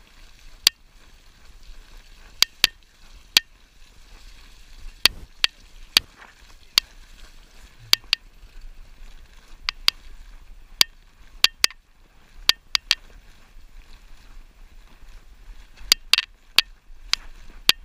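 Mountain bike riding down a dirt singletrack: a low rumble of tyres on dirt, broken by irregular sharp clicks and knocks as the bike and camera jolt over bumps.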